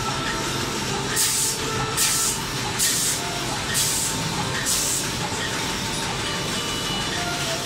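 Napkin tissue packing machine running steadily, with five short hisses of compressed air roughly a second apart as its pneumatic cylinders cycle.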